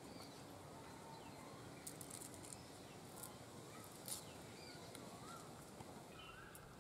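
Quiet rural outdoor ambience with faint bird chirps. A few soft crisp snaps and rustles come about two and four seconds in, as jute leaves are plucked from their stems by hand.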